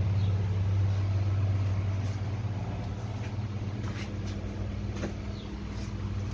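A steady low mechanical hum, like a motor or engine running, with a few faint clicks over it.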